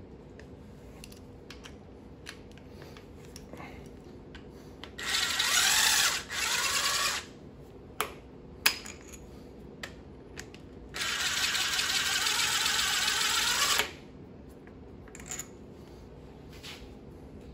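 A cordless power tool runs in two bursts, the first about two seconds long with a brief stutter, the second about three seconds long, backing out the bolts of an engine's timing chain tensioner. A few sharp clicks of tool and metal come between the bursts.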